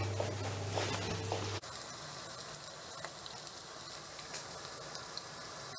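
Soya chunk pakoras deep-frying in hot oil: a steady sizzle with small crackles. A low hum under it stops abruptly about one and a half seconds in.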